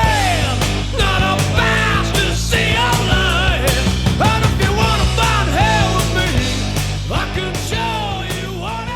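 Rock song with a singer over drums and bass, gradually getting quieter toward the end.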